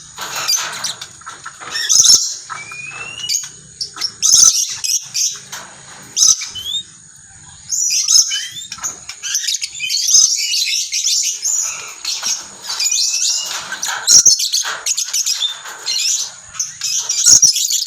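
Lories calling repeatedly in harsh, high-pitched bursts mixed with short rising whistle notes; the calls come thicker and almost continuous from about halfway through.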